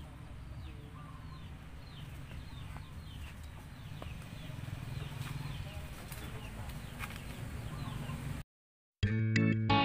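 Native chickens calling: many short, high, falling calls, over a low steady rumble. The sound cuts off dead about eight and a half seconds in, and guitar music begins a moment later.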